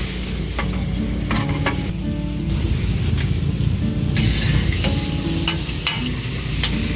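Burger patties, buns and sausages sizzling on a hot flat-top griddle, with a few sharp clicks of a metal spatula against the plate.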